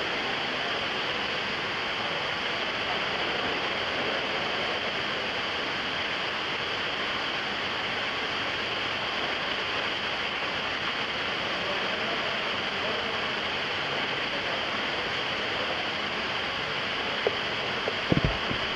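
Steady rush of water running down a pool water slide and into an indoor swimming pool, filling the hall. A few short knocks near the end.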